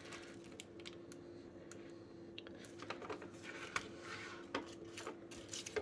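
Faint scattered clicks and rustling from a 1968 Play-Doh Coin Maker plastic press being squeezed shut on foil-wrapped dough and opened again. A faint steady hum runs underneath.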